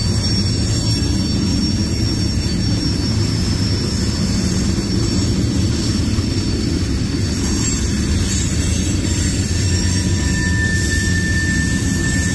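CSX manifest freight train's cars rolling past: a loud, steady rumble of wheels on rail. Thin, steady high-pitched tones ride over it, and a new one comes in near the end.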